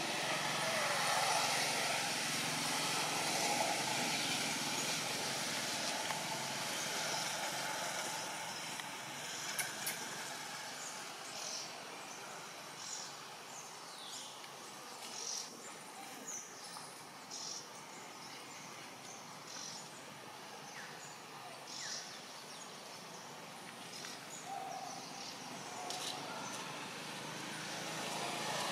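Outdoor background ambience: a steady noise, louder in the first few seconds, with scattered short high chirps from about ten seconds in.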